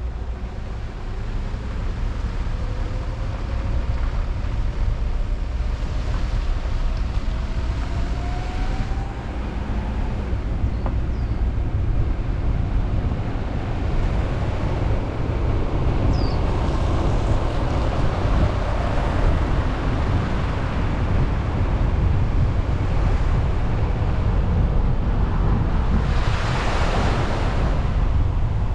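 A car being driven, heard as a steady low rumble of road and wind noise, with a faint rising engine note early on and a louder rush of noise about two seconds before the end.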